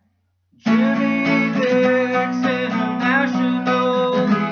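Music led by a strummed acoustic guitar, starting suddenly about half a second in.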